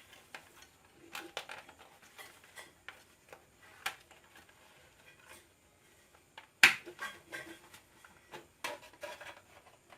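Plastic clicks and small knocks from a mixer grinder's speed switch being handled and pressed into its housing. The loudest is a sharp click about two-thirds of the way through.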